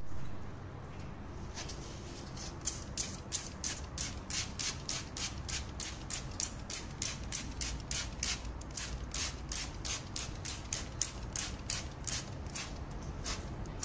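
Alta 500 chemical-resistant hand trigger spray bottle pumped rapidly, each pull giving a short hissing squirt with a click of the trigger, about three a second, starting a couple of seconds in.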